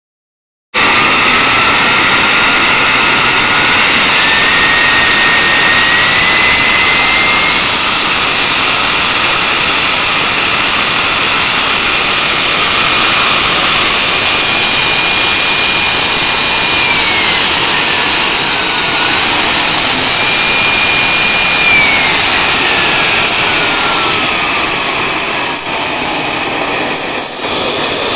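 RC model jet turbine engine running with a loud rushing hiss and a whine whose pitch steps up over the first several seconds and holds high. The whine dips and climbs again around the middle, then slides down near the end as the throttle is stepped up and eased back while the turbine is set up.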